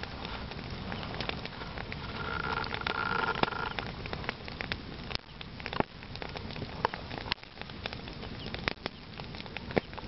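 Bonfire of heaped wood and brush burning, crackling steadily with sharp, irregular pops, and a louder hissing stretch from about two seconds in to nearly four.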